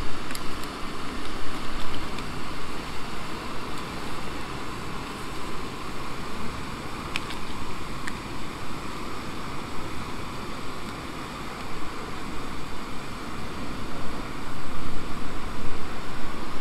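Backpacking canister gas stove burning with a steady rushing roar under a small pot of water coming to the boil, mixed with wind rumbling on the microphone. Two light clicks of handling about seven and eight seconds in.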